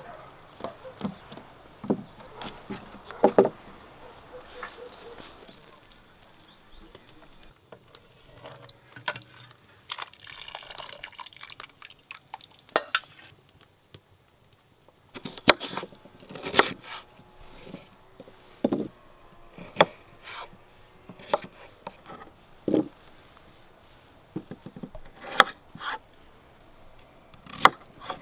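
Food-preparation handling sounds: a string of separate knocks, taps and clinks as vegetables, dishes and a knife meet wooden surfaces. Near the end a kitchen knife cuts potato on a wooden chopping board.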